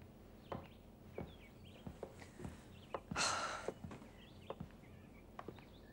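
Quiet footsteps and scattered light knocks, with a short breathy hiss about three seconds in.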